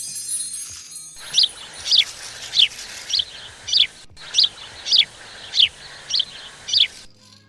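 Bird-like chirping: ten short, high, falling chirps, evenly spaced about two every second, starting about a second in. A high tinkling fades out just before them.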